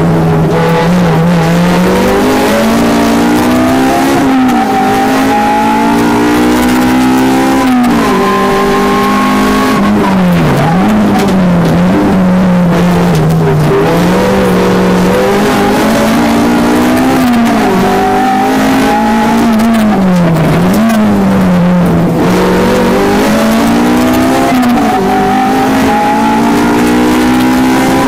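Honda Civic 1.6 VTi's four-cylinder engine at full race pace, heard from inside the cabin: the pitch climbs under hard acceleration and falls away at each gear change or lift, repeating about every three to four seconds.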